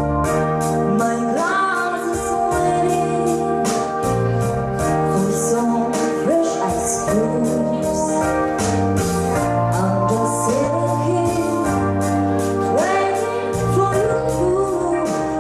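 A young woman singing a song through a handheld microphone, her voice gliding over sustained organ-like keyboard chords and a steady beat.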